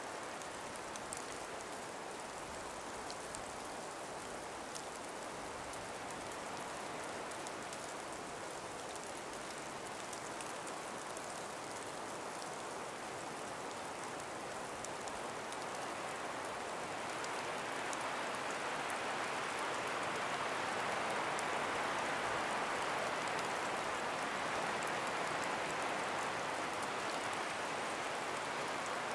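Breeze through a forest of ice- and snow-laden trees: a steady, even rushing that swells about two-thirds of the way through, with faint scattered ticks.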